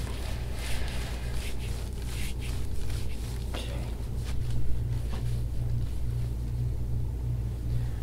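A steady low hum, with faint scattered rustles and soft rubbing sounds of hands pressing and working on the back during deep-tissue massage.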